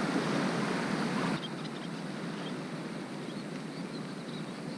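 Steady hiss of wind and surf, dropping a little in level about a second and a half in.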